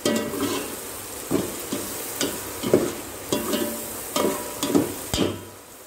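Sliced onions sizzling in hot oil in a stainless steel pot, with a ladle stirring and scraping the pot about twice a second. The stirring stops near the end.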